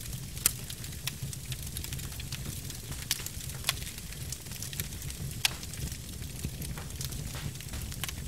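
Log fire burning: a low steady rumble with sharp crackles and pops at irregular intervals, the loudest about half a second in and around five and a half seconds in.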